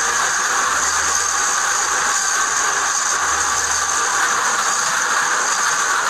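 Caterpillar 320D hydraulic excavator running steadily as it digs, a constant noisy machine sound with a deeper rumble swelling twice.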